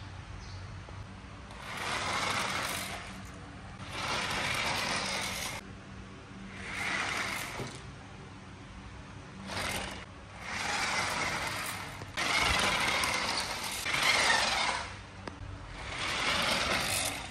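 Toy radio-controlled off-road jeep driving in spurts: its small electric motor and plastic gearbox whir in repeated bursts of one to three seconds, with short pauses between.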